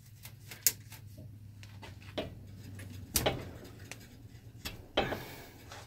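Camera handling noise: cloth brushing against the microphone, with several sharp clicks and knocks. The loudest knock comes about two-thirds of a second in. A low steady hum runs underneath.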